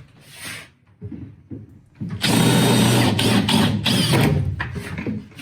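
Power drill running a step drill bit through pop rivets, a loud run of about two seconds starting around two seconds in, with brief breaks as the bit bites.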